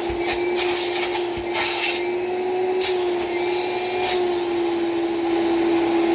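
Hoover Celebrity canister vacuum cleaner running with a steady motor whine. Short scratchy bursts come over it during the first few seconds and again around four seconds in.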